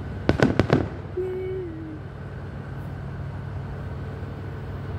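Three firework bangs in quick succession, about a third of a second in, over a steady low background hum. A short, slightly falling tone follows a second later.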